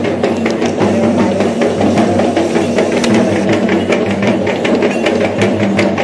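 Traditional procession drums beaten in rapid strokes, over a steady low drone.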